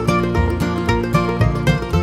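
Background music: a country/bluegrass-style tune with plucked strings over a steady, repeating bass line.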